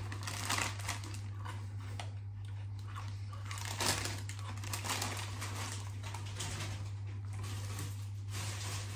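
Foil-lined crisp packets crinkling and crackling as they are handled, with a steady low hum underneath; the sharpest crackle comes about four seconds in.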